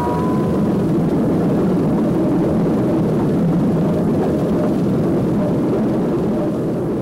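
Diesel locomotive hauling a passenger train close by, a steady heavy engine-and-wheel rumble. A horn chord sounds at the start and stops about half a second in.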